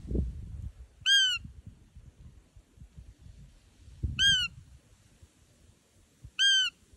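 Roe deer call sounded three times, a few seconds apart: each a short, high squeak that rises then falls in pitch, imitating a doe's call to lure a roe buck. Low bumps of handling noise come at the start and with the second call.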